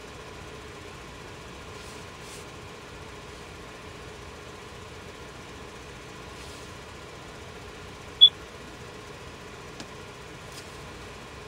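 Steady hum of an idling car engine, with one short high beep about eight seconds in.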